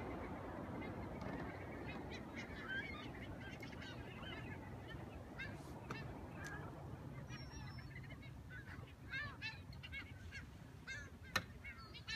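A flock of seabirds calling over the sea, many short honking calls that come thicker in the second half, over a steady low rush. A single sharp knock comes near the end.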